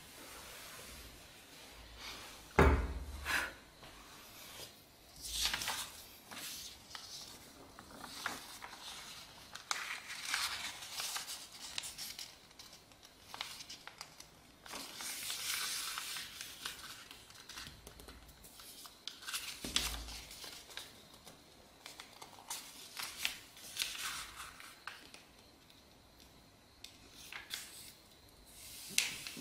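A sheet of A4 paper rustling and crinkling as it is handled and folded, with creases pressed and rubbed flat by hand against a board. A loud thump comes about three seconds in, and a softer knock near twenty seconds.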